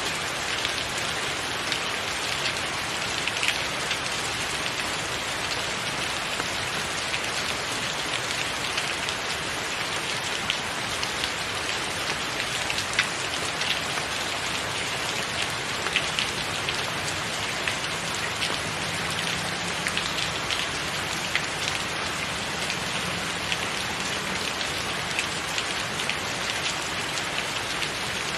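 Steady rain: an even hiss with many sharp, close drop hits scattered through it.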